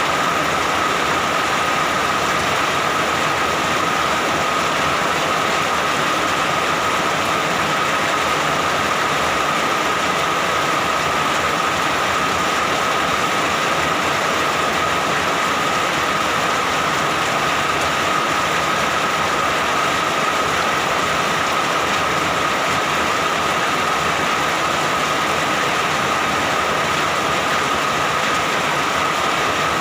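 Steady rain falling, an even unbroken hiss with no changes or thunder.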